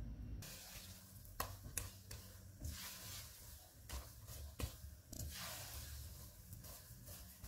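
Silicone spatula stirring and scraping a thickening milk mixture around a non-stick pan on the heat: faint, irregular scraping and a low sizzle, with a few sharp clicks.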